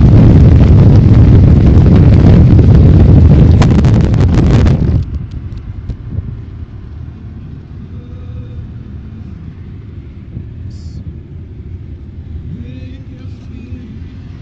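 Loud wind buffeting and road rumble of a moving car heard through an open side window. About five seconds in it drops off sharply, leaving the steady, quieter hum of road noise inside the car.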